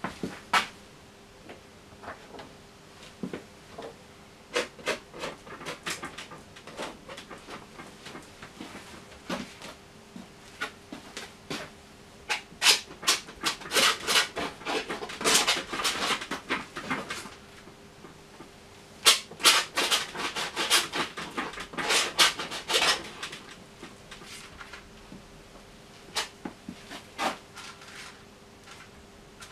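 Palette knife scraping and tapping as oil paint is worked: quick, sharp scrapes and clicks, thickest in two busy spells in the middle, over a faint steady hum.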